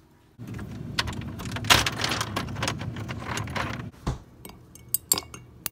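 Kitchen clatter of a ceramic mug and dishes being handled: about three and a half seconds of rattling and clinking, then a few separate clinks near the end.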